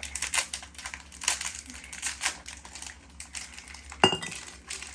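Plastic cookie packaging crinkling as packs are handled, with a sharp clink that rings briefly about four seconds in, like a glass jar being knocked.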